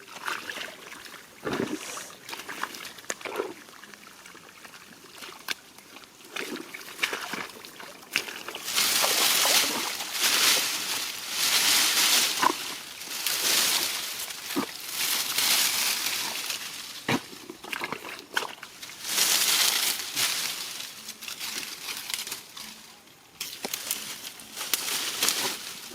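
Shallow rice-paddy water sloshing and splashing as it is worked by hand: scattered small splashes at first, then, from about eight seconds in, repeated loud surges of sloshing a second or two long.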